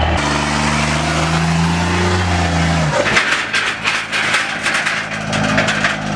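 A vehicle engine idling with a steady hum that rises slightly in pitch. About halfway through it gives way to a dense, rapid crackling clatter for the rest of the stretch.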